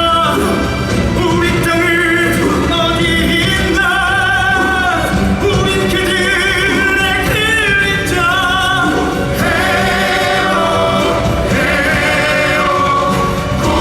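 Singing from a stage musical number: voices with strong vibrato over an orchestral accompaniment, turning toward a choir near the end.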